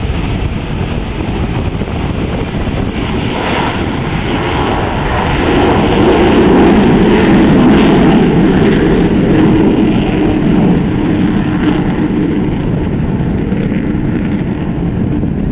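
Rockwell B-1B Lancer bomber's four turbofan jet engines at takeoff power as it lifts off and climbs away. The jet noise swells to its loudest about six seconds in, with a ragged crackle, then slowly eases as the bomber draws away.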